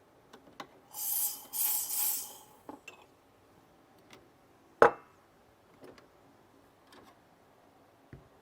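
Small handling sounds while an espresso coffee is being made. About a second in, a hiss comes in two bursts lasting just over a second together. Near the middle there is one sharp clink of crockery or glass, the loudest sound, and small clicks and knocks are scattered around it.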